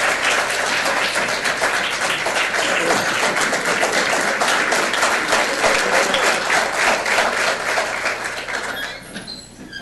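Audience applauding, a dense run of many hands clapping that dies away near the end.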